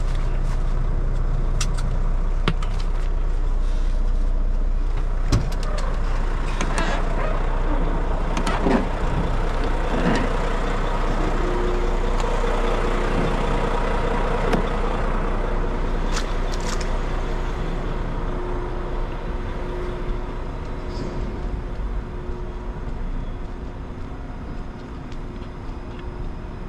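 A semi truck's diesel engine idling steadily, with scattered clicks and knocks from the cab door and the driver's handling. The idle grows quieter over the last few seconds.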